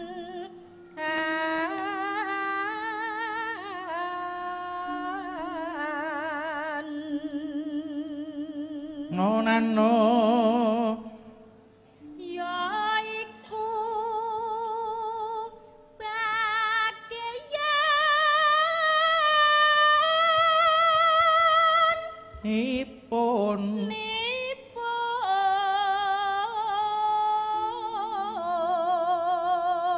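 Javanese female singer (sinden) singing a solo bawa, the free-rhythm vocal prelude to a gamelan song, in long ornamented phrases with heavy vibrato. The phrases break off briefly several times, and a lower held tone sounds beneath much of the singing.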